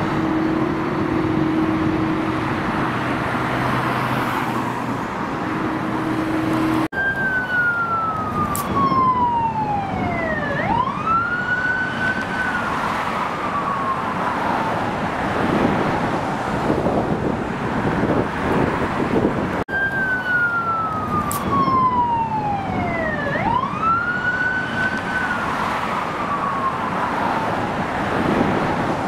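Jet airliner passing low overhead, its engine noise sweeping slowly down in pitch, then swinging sharply back up and easing down again as it goes by. The same pass is heard twice, each time starting abruptly, about seven seconds in and again near twenty seconds. A steady engine hum comes before it.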